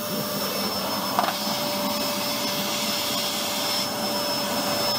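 Vacuum cleaner running steadily, a high, constant whine over the rush of its motor.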